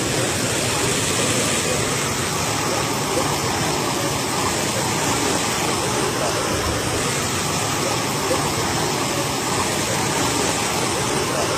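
A tall jet of water gushing up out of the ground and splashing down onto the earth: a steady, unbroken rushing.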